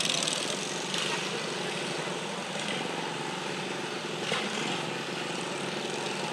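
A John Deere garden tractor's engine running steadily under load as it drags a tractor-pull sled through dirt.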